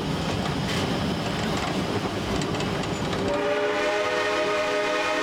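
Narrow-gauge train running, with the rumble and clatter of the cars. About three seconds in, the Shay geared steam locomotive's whistle starts blowing, several steady tones at once, and is still sounding at the end.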